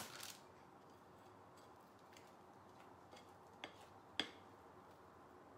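Near silence with a few faint ticks, the loudest about four seconds in: a silicone spatula knocking against a glass mixing bowl as cake batter is scraped out into a tin.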